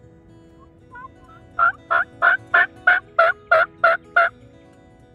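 Turkey yelping: two soft notes about a second in, then a run of nine loud, evenly spaced yelps at about three a second.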